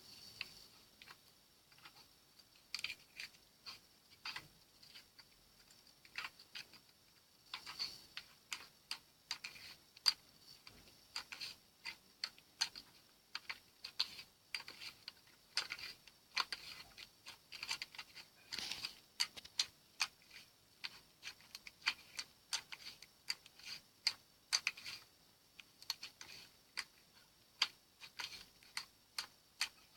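Slime being squeezed and poked by hand, giving many small, sharp, irregular clicks and pops, a few a second.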